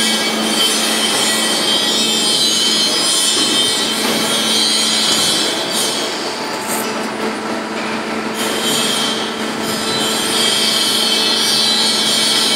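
CNC lathe machining a steel tube under coolant spray: a steady hiss over a constant low hum, easing a little in the middle and building back near the end.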